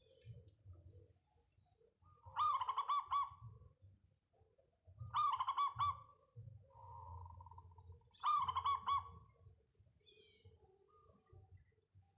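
Zebra dove (perkutut) cooing: three phrases about three seconds apart, each a quick run of about five repeated coo notes.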